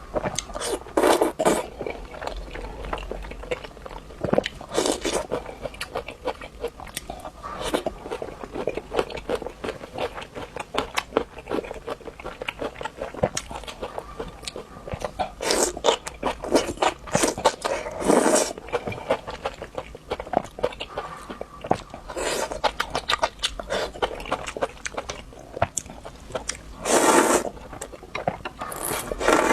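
A person eating close to the microphone: bites and steady chewing made of many quick clicks and crunches, with a few louder bites now and then.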